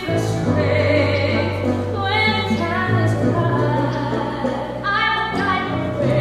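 Musical theatre song: singing voices held over instrumental accompaniment with a sustained bass line that changes note about three seconds in and again near the end.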